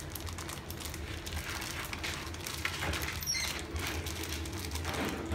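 Thin plastic bag crinkling softly and irregularly as small fingers pick at its twisted, knotted top, over a steady low hum.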